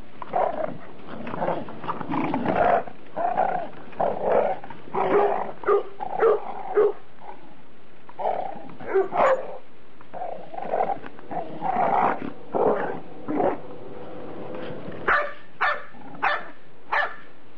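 A dog barking and growling in play, in a long run of quick barks. After a short lull, four sharp barks come close together near the end.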